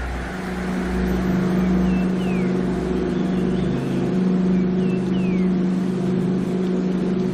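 A steady low droning hum. Over it, a bird calls a short high chirp followed by a falling whistle, about every three seconds.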